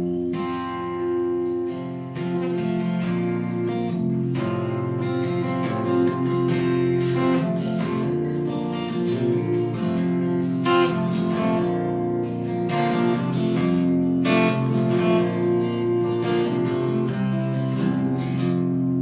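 Solo acoustic guitar playing an instrumental intro, strummed chords with steady, regular strokes.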